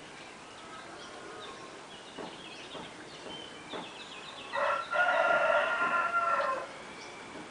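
A rooster crowing once, a single call of about two seconds with a short opening note and a longer held ending, with faint small-bird chirps before it.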